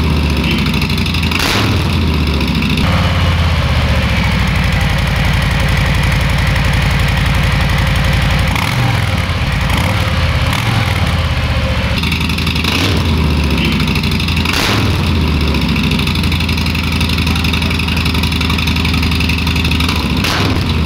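Harley-Davidson Street Bob's Milwaukee-Eight V-twin idling loudly through a Two Brothers 2-into-1 exhaust, with the throttle blipped several times. It is started for the first time after the install to check for exhaust leaks. The sound changes character around 3 s in and again around 12 s, with a middle stretch that fits the same engine on its stock twin mufflers.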